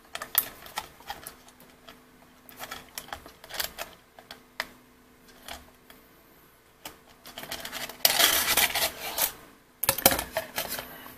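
Scattered light clicks and taps as a copper-clad PCB blank is unclamped and handled on the aluminium slot-profile bed of a mini CNC engraver, with louder rubbing, scraping stretches about eight seconds in and again near the end as the board is moved. A faint steady hum runs underneath.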